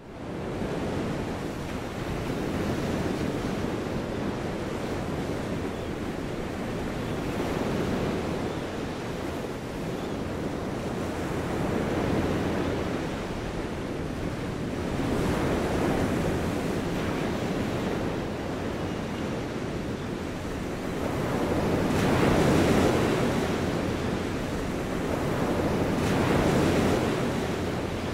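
Small waves washing onto a sandy beach: a steady rush of surf that swells every four to five seconds as each wave breaks and runs up the sand. It begins suddenly out of silence.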